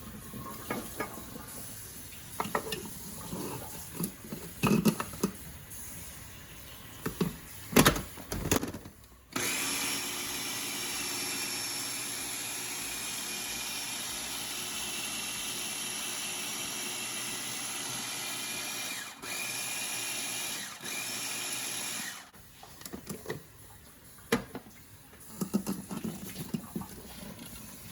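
Light clatter, then an electric kitchen appliance's motor running steadily for about thirteen seconds while it blends homemade cream cheese with its last addition of whey, cutting out briefly twice before it stops; the clatter resumes afterwards.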